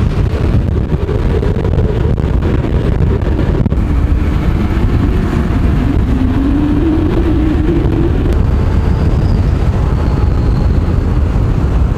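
Strong wind buffeting the microphone: a loud, steady, low rumble.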